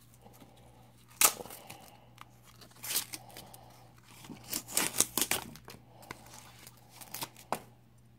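Paper wrapping crinkling and tearing as it is pulled off a knife blade by hand: a run of sharp, irregular crackles, busiest about halfway through.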